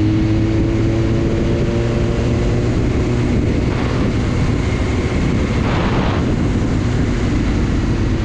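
Motorcycle engine running at a steady road speed under heavy wind noise, its pitch rising slightly at first and then holding. Two brief rushes of noise come a little under halfway and about three-quarters through.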